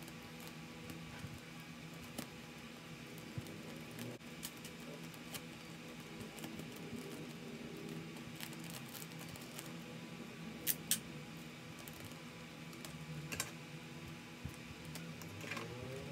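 Hands pressing clear tape along the edge of a paper envelope: light taps, rubs and crinkles, with a few sharper clicks, two of them close together past the middle.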